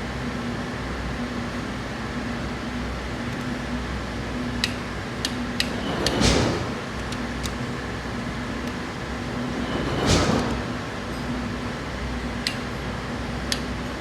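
Workshop background with a steady hum, a few short sharp clicks of tools on metal, and two swelling whooshes about six and ten seconds in.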